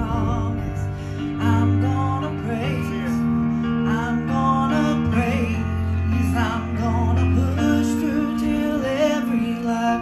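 A woman singing a slow worship song to her own electronic keyboard accompaniment, long held notes that waver over sustained chords.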